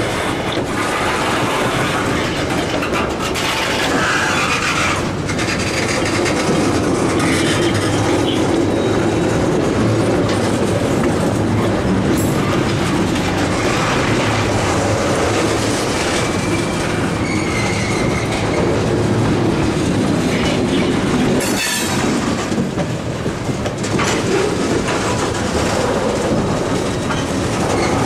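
Freight train of railroad tank cars rolling past close by: steady clatter of steel wheels over the rails, with a few brief wheel squeals.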